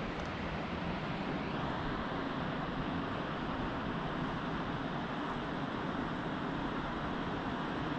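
Steady, even rushing outdoor noise of wind and distant sea.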